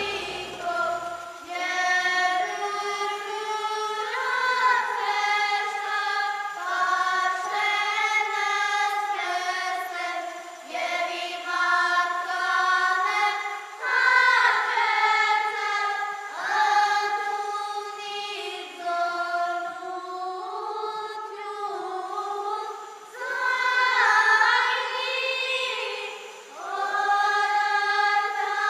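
A choir of high voices singing slow, sustained phrases with held notes.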